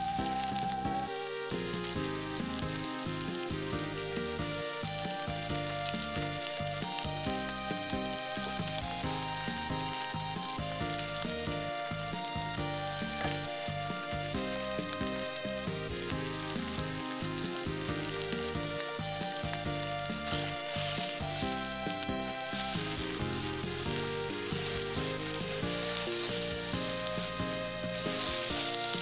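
Food sizzling and frying in hot oil in a pan, with occasional stirring. A background music melody plays throughout.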